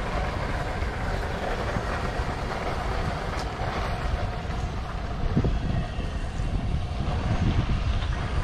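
Steady outdoor background noise: a low, uneven rumble under a fainter hiss.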